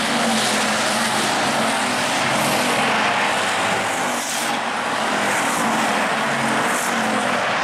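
A pack of hobby stock dirt-track race cars running hard around the track. The engines blend into one loud, continuous sound, with one car passing close at the start.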